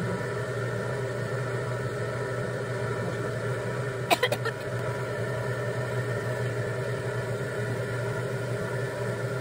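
Electric potter's wheel motor running at a steady speed, a constant hum with a whine over it. About four seconds in, a quick cluster of three or four sharp clicks.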